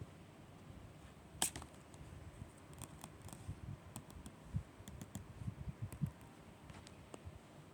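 Light rustling of paper and sticker sheets being handled, with scattered small clicks and taps; the sharpest click comes about a second and a half in.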